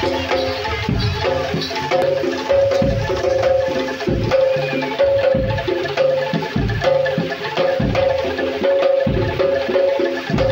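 Music with a steady low drum beat under a repeating melody of short pitched notes.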